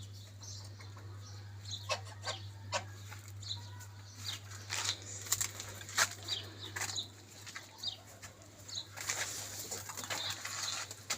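Domestic pigeons flapping their wings, with scattered sharp clicks and knocks and short high chirps.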